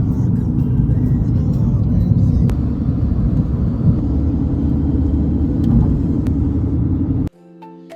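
Steady low rumble of a car in motion, road and engine noise as heard inside the car. It cuts off suddenly near the end, giving way to light mallet-percussion music.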